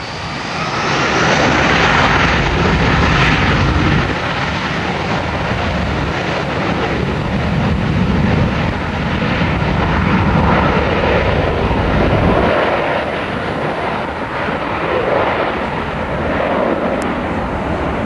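Airbus A321-231's two IAE V2500 turbofans at high thrust on a takeoff roll: a high whine rises near the start, then loud, steady engine noise with a deep rumble swells and eases as the jet moves away down the runway.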